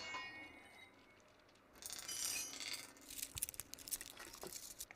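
A steel bar gives a sharp metallic ping that rings out for about a second. Around two seconds in comes a brief hiss, followed by a run of quick clicks and crackles.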